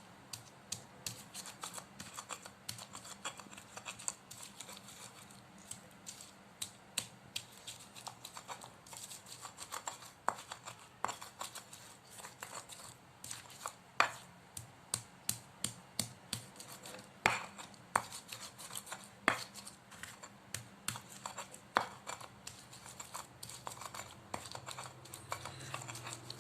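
Pestle grinding and tapping spice paste in a mortar (Indonesian ulekan and cobek): irregular sharp clicks and scrapes, with a few louder knocks in the middle.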